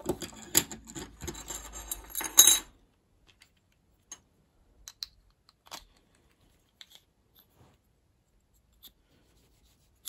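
Small metal fan-motor parts clicking and rattling against each other as the end bracket is handled and fitted over the motor, with a sharp metallic click about two and a half seconds in. After that come only a few faint ticks.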